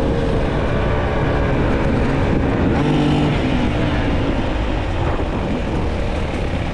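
Enduro motorcycle engine running while riding a trail, heard steadily under a heavy low rumble of wind on the microphone.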